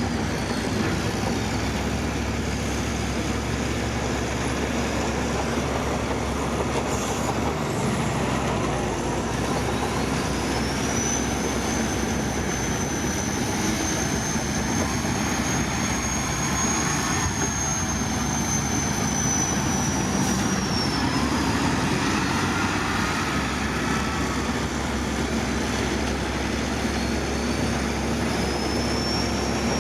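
Bulldozer working sand, its diesel engine running steadily under the clank and grind of its crawler tracks. A high, thin squeal rises about a third of the way in, holds for around ten seconds, and fades out.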